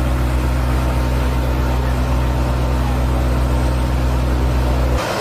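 Steady low engine drone with a constant hum that does not change pitch, cutting off abruptly near the end.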